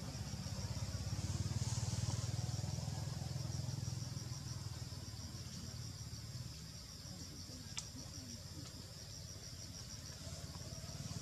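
Insects chirring in a fast, even pulse over a steady low rumble, with a single sharp click about eight seconds in.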